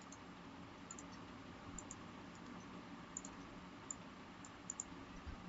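Faint, scattered clicks of a computer mouse or keys, a dozen or so spread unevenly, over a low steady background hiss.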